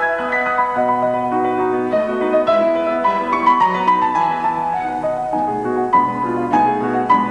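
Classical piano music, a steady flow of notes in the middle and upper register.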